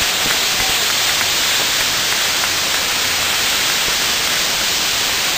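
Maltese ground firework wheel (nar tal-art) burning as it spins, its fountains giving a loud, steady hiss.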